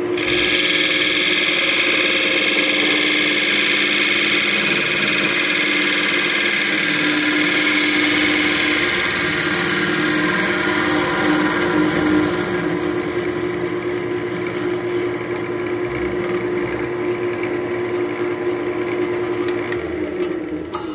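Wood lathe running with a steady motor hum while a turning tool cuts the inside of a spalted beech bowl, a loud shearing hiss that starts abruptly and eases off about halfway through.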